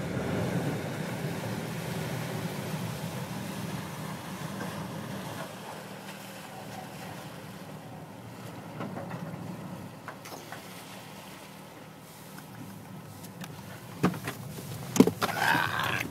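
The Windcat 15 workboat's engines running as it manoeuvres close by, a steady low hum with churning water, loudest at first and fading as the boat moves off. Near the end come a few sharp knocks and a rustle of the phone being handled.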